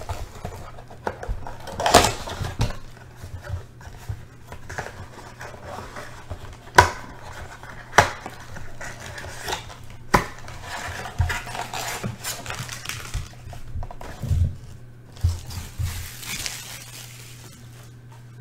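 A cardboard trading-card blaster box being torn open and handled by hand: rustling and scraping of cardboard, broken by several sharp knocks as the box and packs are moved and set down.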